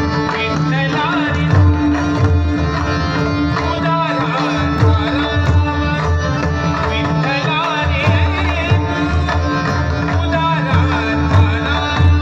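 A Marathi abhang (devotional song) sung by a male voice over a harmonium's held chords, accompanied by a large ensemble of some 125 pakhawaj drums beating together in a dense rhythm.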